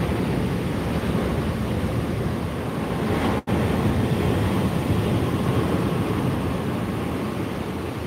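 Rough Black Sea surf breaking and washing up the beach in a steady wash of noise, with wind rumbling on the microphone. The sound drops out for an instant about three and a half seconds in.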